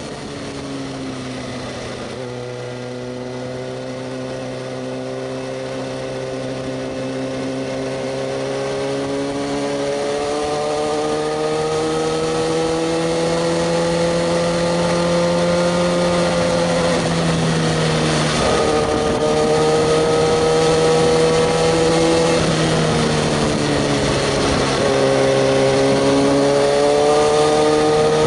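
Kawasaki ZX-6R 636's inline-four engine pulling under way, its pitch and loudness climbing slowly. The pitch drops briefly twice, about 18 and 25 seconds in, as with gear changes.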